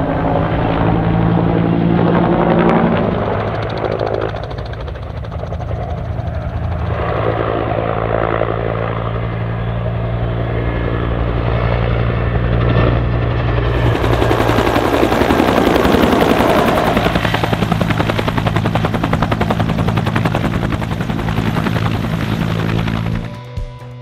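Bell AH-1F Cobra helicopter in flight: its two-bladed main rotor beating in a fast, even rhythm over the steady hum of its turboshaft engine. The beat grows brighter and sharper from about halfway, and the sound cuts off just before the end.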